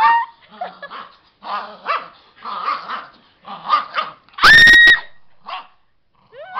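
A 13-year-old dachshund play-growling in short repeated bursts while tugging on a toy. There are a couple of rising whines near the start and one loud, high, held yelp about four and a half seconds in.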